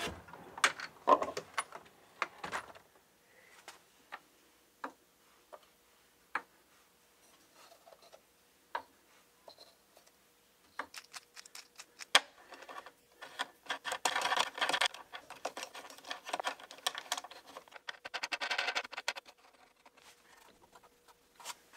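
MDF clamp pieces and their hardware being handled: a drawer sliding open near the start, then a string of sharp clacks and knocks as pieces are picked up and set down on the wasteboard. Two spells of scraping rattle come in the middle and near the end.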